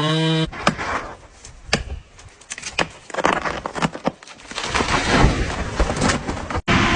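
A brief pitched tone that cuts off about half a second in, then a string of irregular sharp knocks and cracks of varying loudness.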